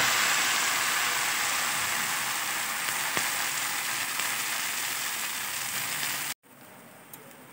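Thin rice-flour batter sizzling in ghee on a hot pan just after being poured, the hiss slowly dying down as it sets. It cuts off suddenly near the end, leaving only a faint background with a few light ticks.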